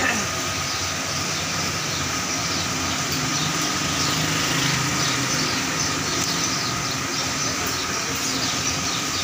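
Steady mechanical rumble and hiss with a constant hum, like a running motor or fan.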